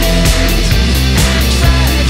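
Recorded rock song playing: full band with a steady drum beat, about four hits a second, over bass and guitar.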